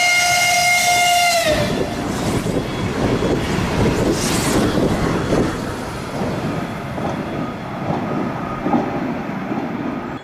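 ES1P Lastochka electric train sounding one horn blast that drops in pitch as it passes and cuts off after about a second and a half. It is followed by the loud rushing noise of the train going by at speed, with knocks from the wheels on the rails.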